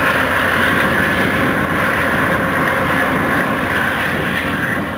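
Loaded coal train led by two Union Pacific diesel locomotives rolling by, a steady mix of engine noise and wheels on rail, slowly fading as it moves away.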